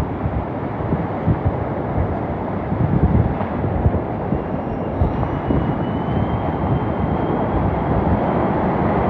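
Hurricane-force wind blowing hard and steadily, with gusts buffeting the microphone.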